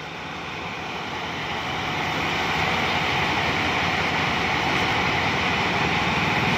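Rice combine harvester running, its engine rumble and the whirring of its threshing and unloading machinery growing louder over the first couple of seconds, then holding steady.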